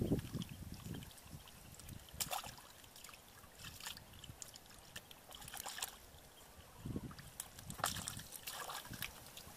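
Hands splashing and sloshing in shallow muddy paddy water while feeling through the mud for fish: scattered short splashes a second or two apart, with a few low dull thuds near the start and about seven seconds in.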